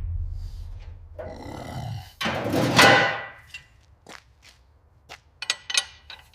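Heavy metal clunks and scraping as the Beetle's flat-four engine is handled onto an engine stand. The loudest clunk, about two and a half seconds in, carries a brief metallic ring, and a string of small clicks and knocks follows.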